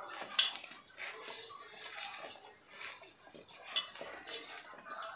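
Clinks and knocks of dishes and utensils with soft handling noise, as pieces are mixed with salt and turmeric. The sharpest clink comes about half a second in, with a few lighter ones later.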